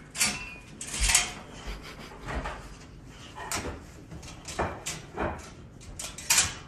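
Metal wire dog crate door rattling and clinking as a dog licks and noses at its latch, in irregular rattles about once a second.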